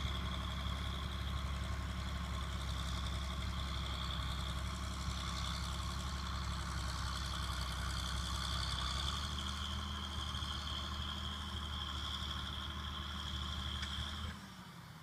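John Deere 4240 tractor's six-cylinder turbo diesel running steadily, with a steady high whine over the engine note. The engine note shifts slightly about nine seconds in, and the sound cuts off suddenly near the end.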